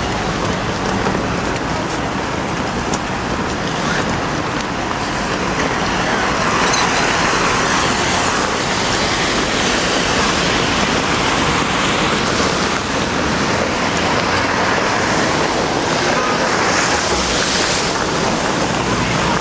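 Steady street traffic noise from cars driving on a wet, slushy road.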